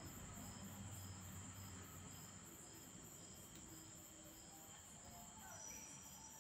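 Near silence: faint insect chirping, pulsing about twice a second, over a faint steady high tone.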